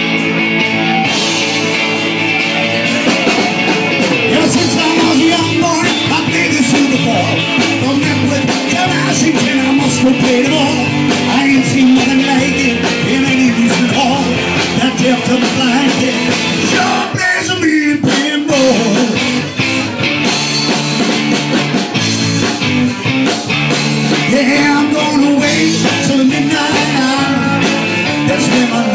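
Live rock band playing with a male lead singer over electric guitar, bass guitar, keyboards and drums.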